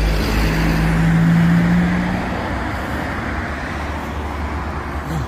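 A motor vehicle passing close by: engine hum and tyre noise swell to a peak about a second in, then fade into steady traffic noise.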